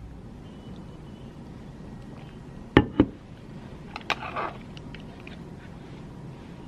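Two sharp knocks close together about three seconds in, then another knock and a short rustle a second later, over a low steady hum.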